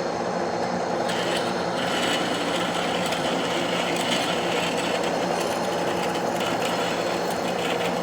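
Metal lathe running steadily while a 1/4-inch drill bit cuts into the oiled workpiece, the motor and gearing giving a constant hum under the cutting noise.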